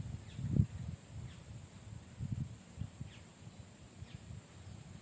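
Outdoor ambience: faint short falling chirps about once a second over low rustling and bumping noises, with the bumps loudest in the first second.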